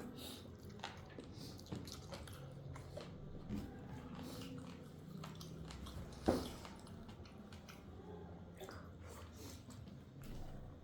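Person chewing a mouthful of food, with soft mouth sounds and small clicks and one sharper click about six seconds in, over a low steady hum.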